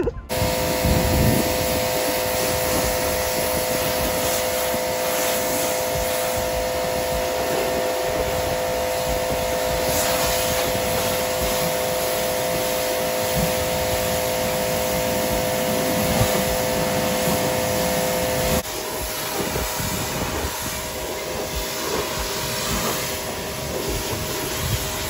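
Pressure washer running steadily while its wand sprays water at a truck's body: a constant hiss of spray over the machine's steady hum. About three-quarters of the way in the sound drops a little and its hum shifts in tone.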